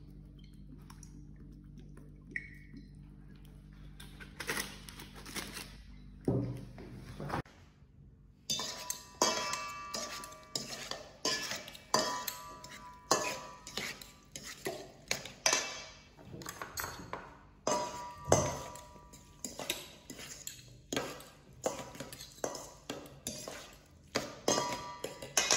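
A salt grinder gives a few rough grinds over a low steady hum. Then a metal utensil clinks and scrapes against a stainless steel mixing bowl while chopped tomatoes and corn are stirred: sharp clinks about once a second, some with a short ringing note.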